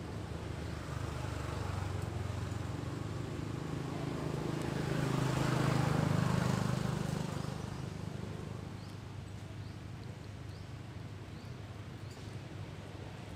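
A motor vehicle's engine hum, growing louder to a peak about six seconds in and then fading, as if it drives past.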